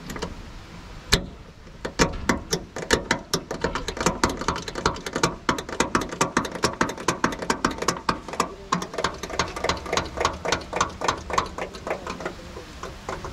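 Rapid, even metallic clicking, about four or five clicks a second, from a bolted fitting under the hood of an old Mahindra pickup as it is worked by hand.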